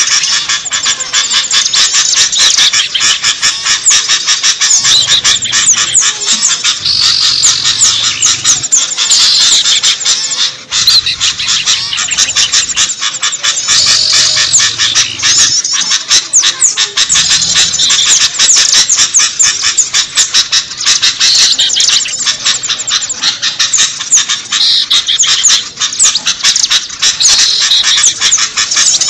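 A loud, dense chorus of many small songbirds chirping and twittering rapidly over one another without a break, a mix of several species put together as a bird-luring call.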